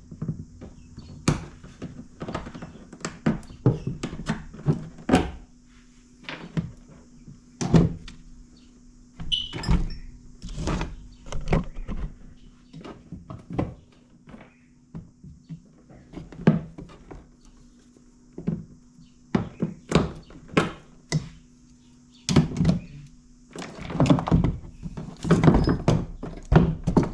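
Irregular knocks, taps and clicks of hand tools and parts being handled during work on a plastic kayak's cable fittings, with quiet gaps between them and a busier stretch near the end.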